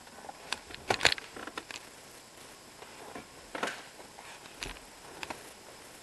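Handling noise from a handheld camera moved about inside a car's cabin: scattered light clicks, taps and rustles, the loudest cluster about a second in and another just past the middle.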